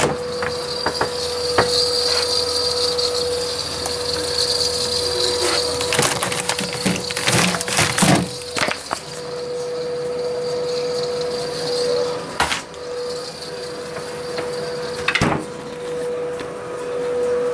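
Fridge door handled and things moved on its shelves: a cluster of sharp knocks and clatter about halfway through, and two more single knocks later, over a steady hum.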